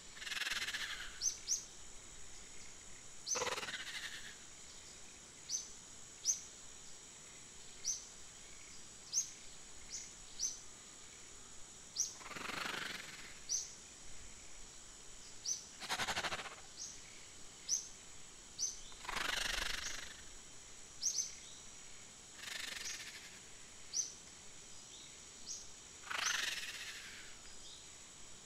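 Outdoor nature ambience: short, high, rising bird chirps repeat about once a second over a steady high-pitched hum, with a soft rustling swell every few seconds.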